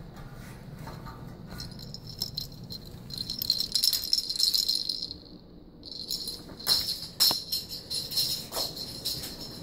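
A hand-held ball cat toy with streamers shaken quickly, rattling in two spells with a short break in the middle, plus a few sharper knocks in the second spell.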